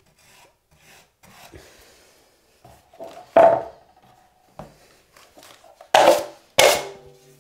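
Steel drywall taping knife scraped against the edge of a mud pan, working joint compound. There are soft scrapes, one loud stroke about halfway, and two louder strokes near the end, the last with a short metallic ring.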